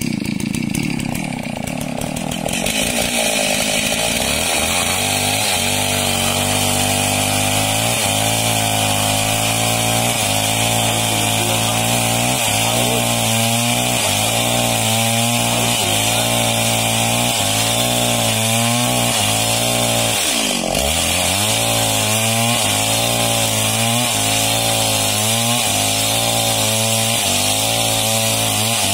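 Small two-stroke chainsaw ripping a log lengthwise along the grain. It runs at lower revs for the first couple of seconds, then holds full throttle, its engine note wavering rhythmically as the bar is pushed along the cut, with one brief dip in pitch about two-thirds of the way through.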